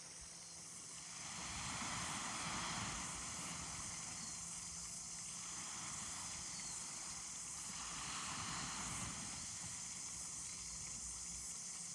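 Outdoor nature ambience: a steady high-pitched insect drone, with a soft wash of noise that swells twice.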